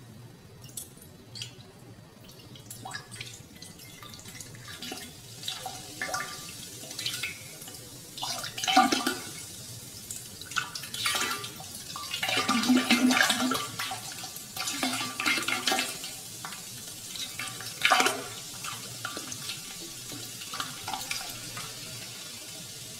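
Water splashing and dripping onto a small crucifix figurine in irregular spurts, busiest through the middle, with one sharp splash late on.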